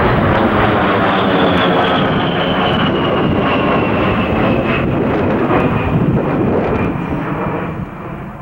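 A-10 Thunderbolt II's twin General Electric TF34 turbofans passing overhead: a loud steady jet roar with a high whine that slowly falls in pitch as the aircraft moves away. It fades near the end.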